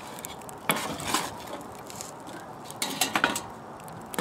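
Hot charcoal briquettes being shifted around in a shallow metal pan, with a few sharp clinks and scrapes: once about a second in, and a quick cluster near the end.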